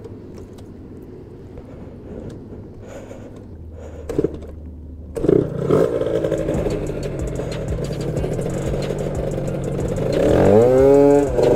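A low, quiet vehicle-cabin rumble with a few faint clicks. About five seconds in, this gives way abruptly to a louder scooter engine running, which revs up and drops back near the end.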